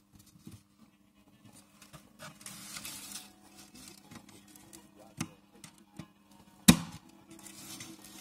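Small clicks and scraping as a screwdriver and fingers work on the button mechanism of a stainless-steel toilet-cistern flush plate, with one sharp click a little before the end the loudest. A faint steady low hum runs underneath.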